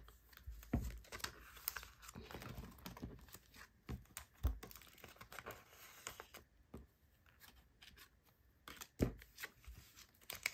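Clear plastic binder pocket sleeves rustling and crinkling as photocards are slid into them, with scattered light clicks and taps. Two louder soft thumps come midway and near the end.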